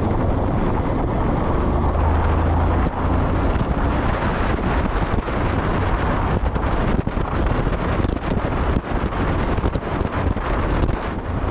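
Wind buffeting the microphone over the steady low rumble of a vehicle on the move.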